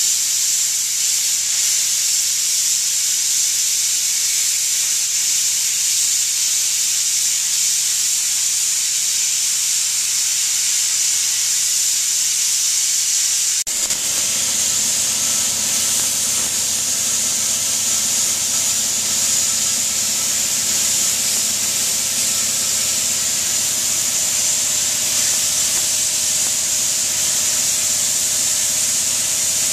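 Plasma cutter cutting steel plate: a loud, steady hiss of the arc and air jet, with the low hum underneath changing about halfway through.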